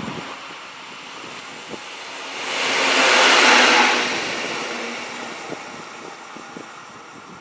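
A single locomotive running light passes close by on the railway, its noise swelling to a peak about three to four seconds in and then fading away.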